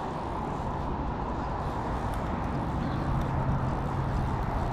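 Steady rush of road traffic crossing a bridge, with a low hum that grows stronger about halfway through.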